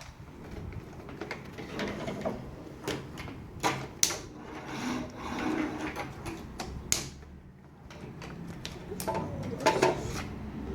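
Plastic toy car transporter and toy cars being handled, giving scattered clicks and knocks at irregular intervals.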